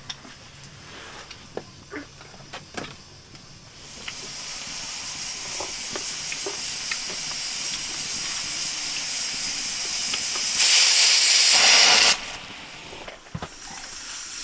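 Pressure cooker venting steam: a hiss builds gradually from about four seconds in, then the weight lifts in a loud whistle blast lasting about a second and a half near the end before dropping back to a quieter hiss. The whistle is the sign that the cooker has reached full pressure.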